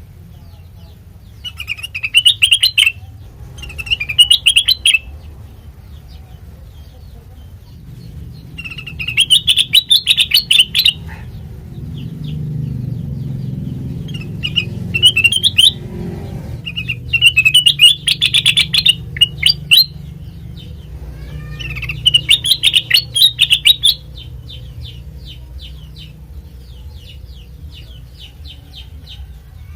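Kutilang mas singing: about six loud bursts of fast, repeated chirping notes, each a second or two long and a few seconds apart, ending in a fainter rapid run of ticking notes over a low hum.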